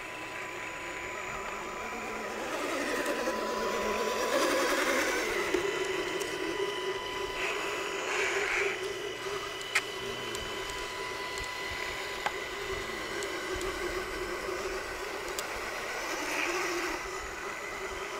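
Electric motor and geared drivetrain of an RC scale rock crawler whining steadily as it drives through deep mud, louder for a few seconds near the start, with a couple of sharp clicks near the middle.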